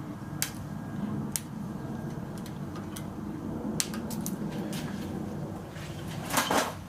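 Sharp single clicks of cutters snipping the excess tails off tightened zip ties, spaced a second or more apart, with a louder, longer noise near the end.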